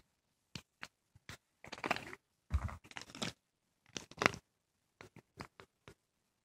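A plastic melatonin bottle with a green cap being handled and opened close to the microphone: a string of short clicks and scrapes, with louder rustling handling noises about two, three and four seconds in.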